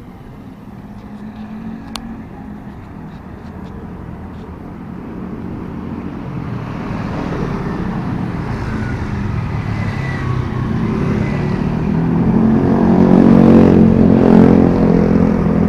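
Road traffic, with a car's engine getting steadily louder as it comes up and passes close by near the end.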